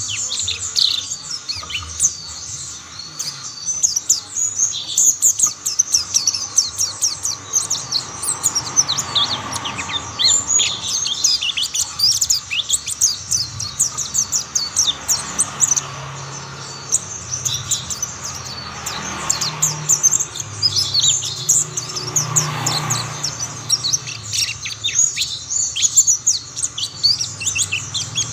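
Mountain white-eyes (pleci montanus) singing, a dense, continuous stream of rapid high-pitched chirps and twittering trills from more than one bird.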